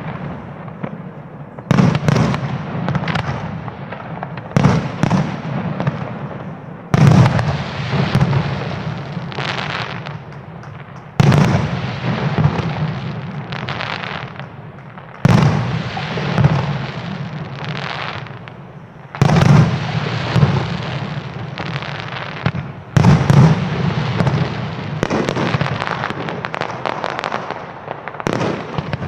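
Aerial firework shells bursting in a display: a loud bang every two to four seconds, each trailing off over a second or more, with smaller bursts in between.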